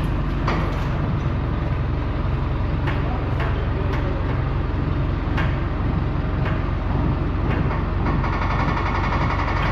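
Diesel farm tractor engine running steadily, with a few light knocks along the way. About eight seconds in its note rises and fills out as the engine speeds up.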